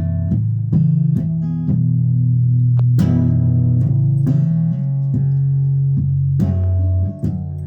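Guitar played as a slow run of plucked low notes, each left to ring into the next.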